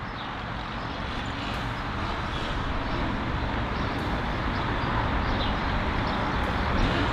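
Rushing wind and vehicle noise from moving along a street, growing steadily louder, with no clear engine note standing out.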